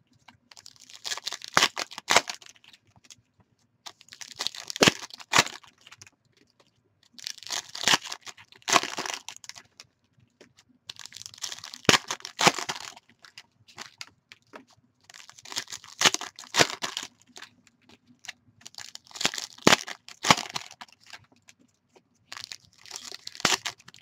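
Foil wrappers of Panini Prizm basketball card packs being torn open and crinkled by hand, in short crackling bursts with sharp snaps every three to four seconds.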